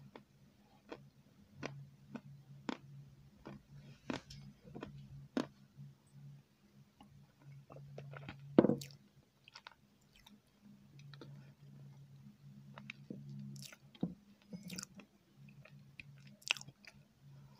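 A person chewing soft dessert close to a clip-on microphone: a run of short, wet mouth clicks and squelches, with one louder mouth noise about halfway through.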